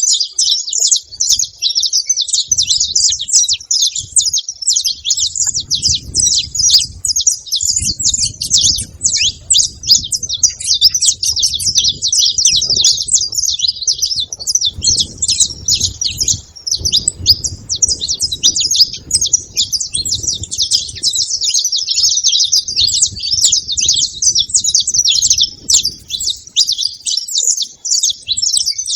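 Saffron finches chirping, a dense, unbroken stream of high chirps.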